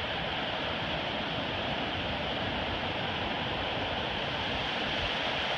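Ocean surf breaking and washing up over a flat sandy beach: a steady, even rush of water.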